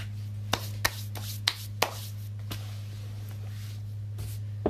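Hands rubbing and handling things on a desk, with several sharp clicks in the first two seconds and one more near the end, over a steady low hum.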